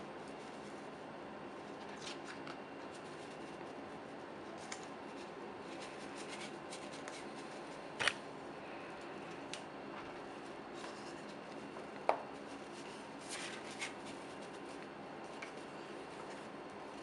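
Pages of a large glossy photobook being turned by hand: a few short paper rustles and slaps, the sharpest about eight and twelve seconds in, over a steady faint background hum.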